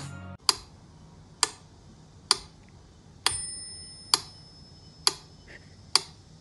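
Sharp ticks at a steady pace, a little faster than one a second, with a faint high tone held for about a second and a half near the middle.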